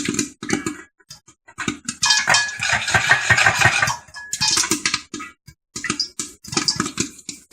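Popcorn rattling in a lidded pot being shaken on the stove burner, in bursts of dense clattering with short pauses, thickest about two to four seconds in.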